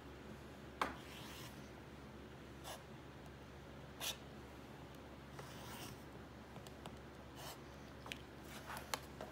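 Rotary cutter blade drawn along an acrylic quilting ruler, slicing through cotton fabric on a cutting mat in several short scraping strokes as a half-square triangle is squared up. A sharp click about a second in is the loudest sound.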